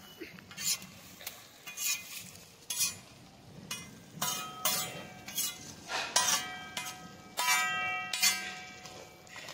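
A spoon stirring and scraping in a pan of sizzling food, with a scrape about every two-thirds of a second. From about four seconds in, the pot rings with a steady tone under the strokes.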